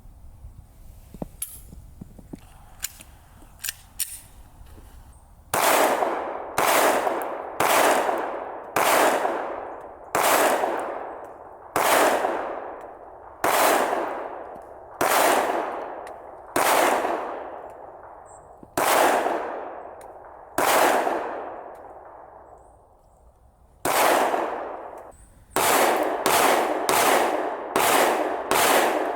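Glock 43X 9mm pistol being fired: slow single shots one to two seconds apart, each ringing out afterward, then a brief pause and a quick string of shots near the end. A few faint handling clicks come first.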